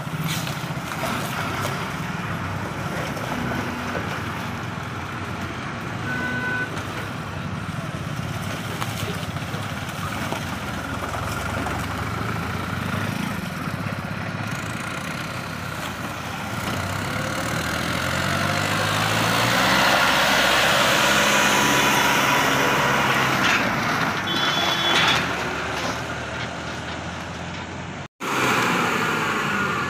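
Slow road traffic: engines of buses, trucks, a tractor and motorcycles running as they pass, with a short horn toot about six seconds in. From about seventeen seconds a vehicle's engine rises in pitch as it speeds up, and the sound drops out for a moment near the end.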